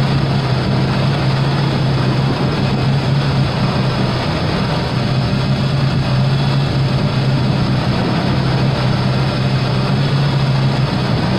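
1987 Ford Bronco II's 2.9-litre V6 idling steadily, at an even speed; the engine has overheated.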